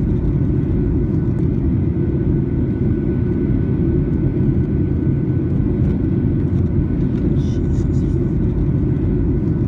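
Steady low roar of jet airliner cabin noise in flight: engines and airflow heard from a window seat.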